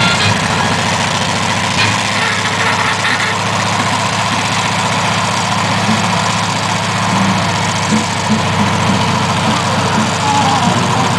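M4 Sherman tank engine running steadily as the tank drives away over sandy ground.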